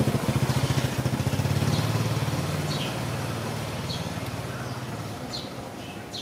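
A motor vehicle's engine running unseen, a low, rough hum that is loudest in the first few seconds and then fades away. Short, high chirps come about once a second above it.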